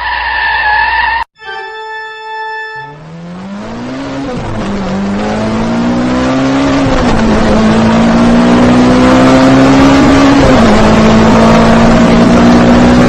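A car engine accelerating hard through the gears, its pitch climbing and dropping back at each shift about three times, growing steadily louder until it cuts off abruptly. It is preceded by a brief steady organ-like tone.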